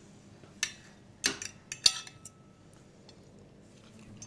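Cutlery clinking against a plate while someone eats, a few light clinks in the first two seconds, then quiet clatter-free room tone.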